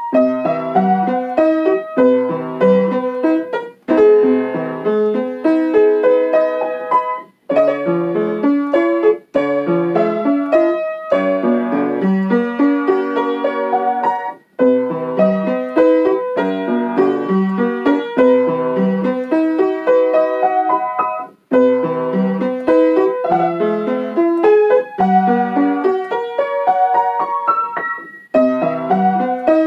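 Piano playing a song melody over a chord accompaniment, in phrases separated by short breaks.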